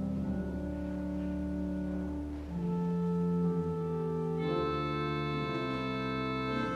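Organ playing slow, held chords. The chord changes about two and a half seconds in, and again just past the middle, where brighter high notes join in.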